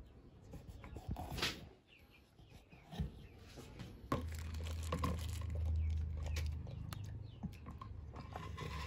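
Wet handling of a raw stingray by hand: soft squelches and scattered clicks as the slick skin is pressed, and then, near the end, rubbed with a thick marinade. From about halfway through, a low rumble of handling noise sits under it.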